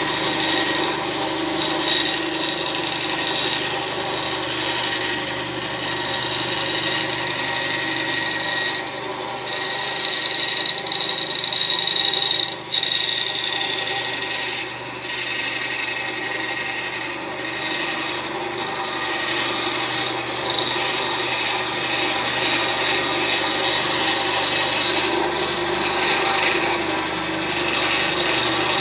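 My Project benchtop wood band saw running and cutting out a circle from a thin board. The blade rasps steadily through the wood over the motor's steady whine.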